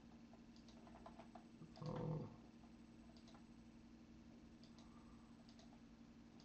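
Near silence: a steady low hum with a few faint computer mouse clicks scattered through it, and a short murmur from a man's voice about two seconds in.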